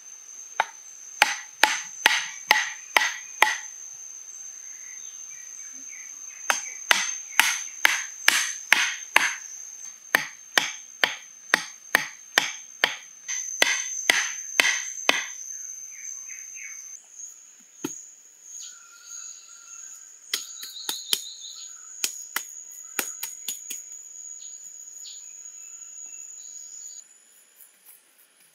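A chunk of wood used as a mallet knocks short bamboo stakes into the ground, in runs of quick strokes about three a second and then in scattered single blows. Under it runs a steady high buzz of insects such as cicadas or crickets.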